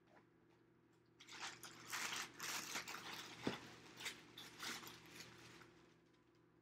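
Paper and cardboard takeout packaging rustling and crinkling as it is handled, for about four and a half seconds, with one sharp click partway through.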